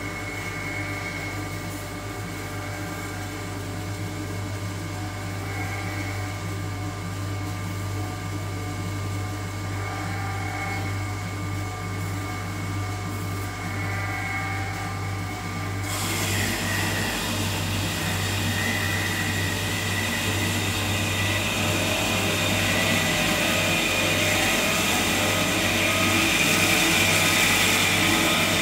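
Pilous ARG 200 Plus metal-cutting bandsaw running with a steady hum. A little over halfway through, the blade bites into the metal workpiece and a higher cutting noise sets in suddenly, growing louder as the arm feeds down under its own weight.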